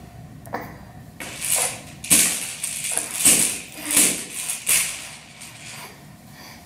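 A baby handling a plastic toy rattle and a cloth: a series of short rattling, rustling bursts that die down about five seconds in.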